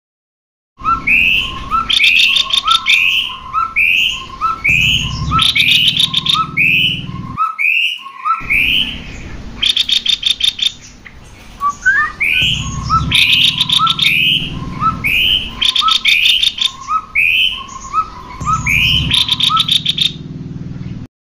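Cucak kopi (kopi-kopi) birds singing continuously in a repeated phrase: quick rising whistled notes interleaved with fast chattering trills. A low hum sits under the song, and it cuts out briefly about eight seconds in, as in a looped recording.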